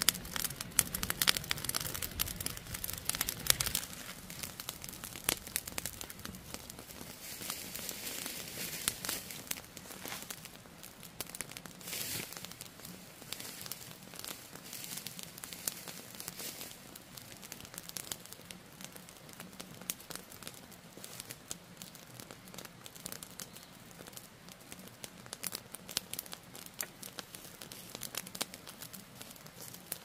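Dense, irregular crackling and snapping of dry vegetation, loudest in the first few seconds and then steadier.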